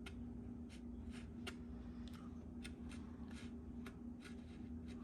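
Faint, irregular light clicks and taps from handling the opened smoke alarm, about a dozen over a few seconds, over a steady low hum.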